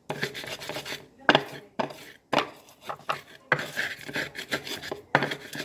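Pestle grinding chili, salt and tomato in a mortar: repeated rubbing, scraping strokes, with a few sharp knocks of the pestle about a second or two in.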